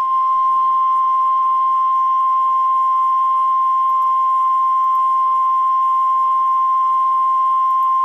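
NOAA Weather Radio warning alarm tone: a single loud, steady beep at one pitch, held unbroken. It is the National Weather Service's alert that a warning broadcast follows, here a severe thunderstorm warning.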